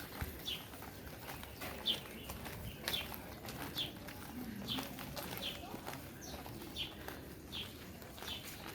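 A bird repeating a short, high call that falls in pitch, about once a second, over faint outdoor background noise.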